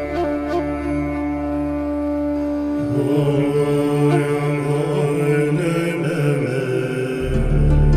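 Background music in a mantra-chant style: sustained held tones, joined about three seconds in by a low chanting layer, with a deep bass note coming in near the end.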